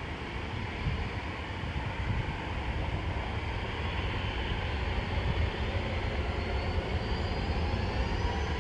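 Jet airliner engines running, a steady rumble with a high whine that rises in pitch in the second half as the sound slowly grows louder.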